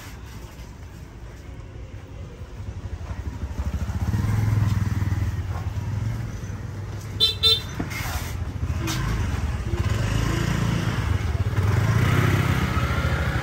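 Passing motorbike traffic, the engine rumble swelling a few seconds in, with two short horn toots about seven seconds in.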